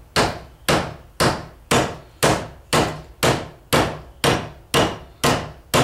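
Rubber mallet striking a Speedi-Sleeve installer driver in a steady rhythm, about two blows a second, a dozen in all. The blows are driving the thin steel repair sleeve down over a grooved seal surface on a transfer-case front output yoke.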